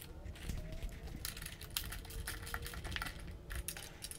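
Hand ratchet with a hex bit clicking in quick, irregular runs as bolts are tightened down.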